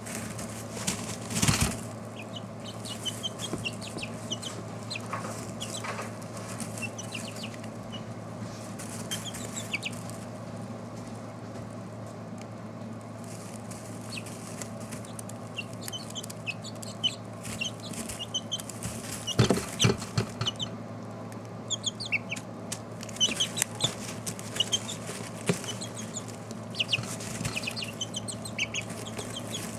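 Four-week-old chickens peeping in short, high chirps, scattered and busier in the second half, with a couple of louder brief wing flaps about a second and a half in and again around twenty seconds in. A steady low hum runs underneath.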